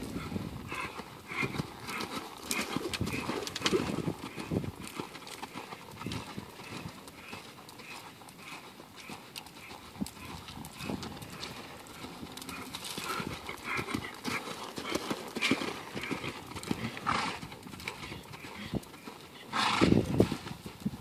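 Hoofbeats of an American Quarter Horse gelding ridden across arena sand, a steady rhythm of footfalls, with a louder noise near the end.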